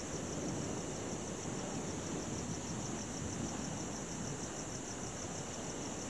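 Crickets chirping in a steady, rapidly pulsing high trill over the low, continuous wash of ocean waves, which swells in the first few seconds.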